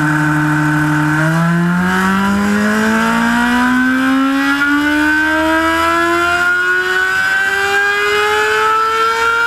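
Mazda 787B's R26B four-rotor rotary engine running on a chassis dynamometer. It holds a steady speed for about a second, then climbs slowly and steadily in pitch as it pulls up through the revs.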